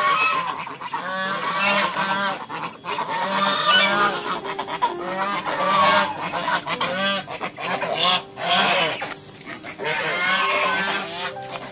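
A small flock of white domestic ducks calling over and over, with loud, overlapping quacks.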